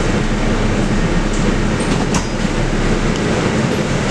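Cabin rumble of a Mercedes-Benz O500LE city bus on the move, its OM936LA six-cylinder diesel running at low revs under the body and road noise. There is a single sharp knock from the bus about two seconds in.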